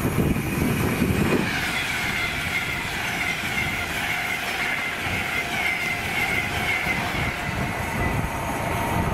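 A train running past on the line with a rumble of wheels on rails. About a second and a half in, a high, wavering squeal from the wheels sets in.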